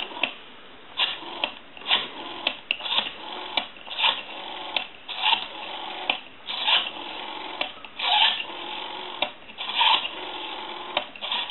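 Rotary dial of a Western Electric Princess telephone being dialed digit after digit, with a sharp click about every half second to a second as it is pulled round and let go, over and over. The dial has just been cleaned, oiled and adjusted.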